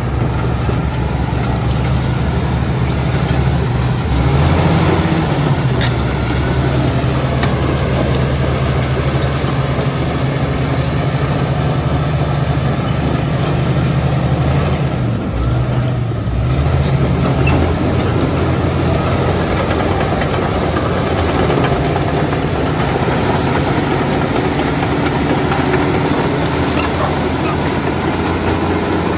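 Komatsu D85ESS-2 bulldozer's diesel engine running steadily. Its pitch rises briefly about four seconds in, and it dips and comes back up about halfway through.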